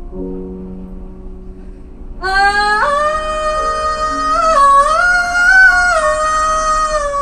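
Soft sustained piano chords, then about two seconds in a woman's powerful belted note scoops up and is held for about five seconds over the piano, with a few small steps in pitch: the song's big final note.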